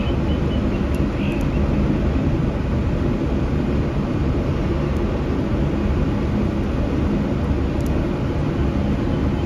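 Steady low background rumble with no distinct events, and a few very faint ticks about a second in.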